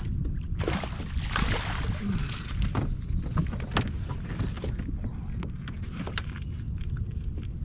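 Wind buffeting the microphone in a steady low rumble, with a splashing burst from about half a second to two and a half seconds in as a hooked smallmouth bass thrashes at the surface beside the kayak. A few sharp knocks follow.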